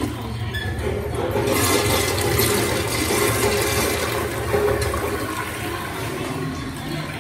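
Cotto C1320 Sydney flushometer toilet flushing: water rushes through the valve and swirls down the bowl. The rush is loudest from about a second and a half in and eases off near the end. The flush has average strength, not a powerful one.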